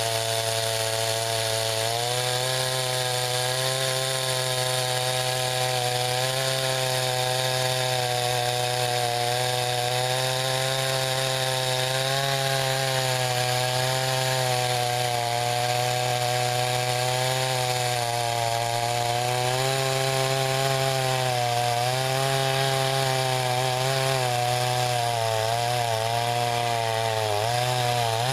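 Gas chainsaw running steadily while cutting into pecan wood, its engine note wavering as the chain takes the load. The note dips several times near the end as the engine bogs in the cut.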